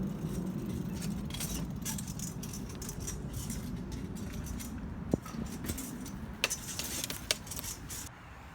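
Light rattling and jingling with a few sharp clicks over a steady low rumble, growing quieter near the end.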